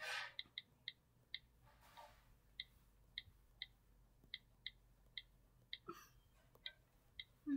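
Tablet on-screen keyboard key clicks as someone types: about a dozen faint, irregularly spaced clicks, each with the same bright pitch. A brief low thump right at the end.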